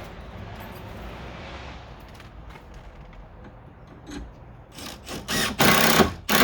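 A metal pad bolt being handled and lined up against the timber boards of a closeboard gate: low rubbing, then several loud scrapes on the wood near the end.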